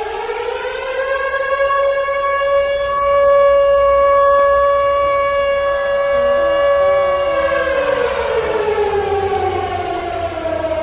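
Civil defense siren wailing as a nuclear attack warning. Its pitch climbs over the first second or so, holds one steady note for about six seconds, then slowly falls away near the end.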